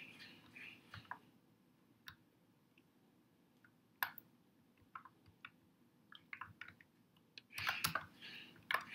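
Computer keyboard typing: faint, scattered key clicks with pauses between them, then a quicker run of keystrokes near the end.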